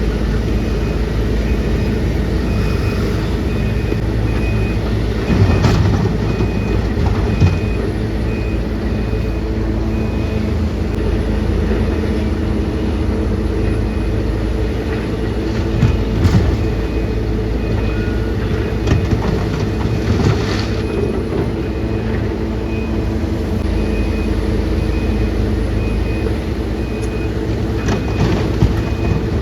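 Heavy diesel machinery running steadily, with a high warning beep repeating throughout and a few short clanks.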